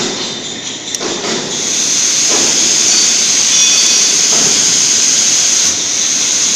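Steady, loud hiss of gas flowing through the automatic welding rig. It comes in about one and a half seconds in, after a few faint knocks, with no arc yet struck.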